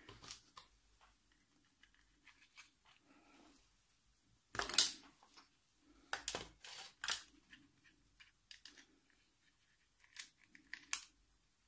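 Handling noise from a plastic laptop battery pack being turned in the hands while alligator-clip test leads are clipped onto its terminals: scattered clicks and light knocks, the loudest about four and a half seconds in and another near the end.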